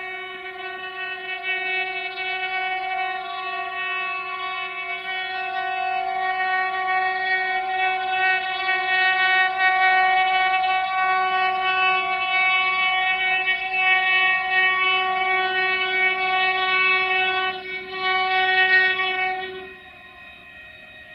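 Diesel locomotive air horn blown in one long, steady chord, held for about twenty seconds. It wavers briefly near the end, then cuts off.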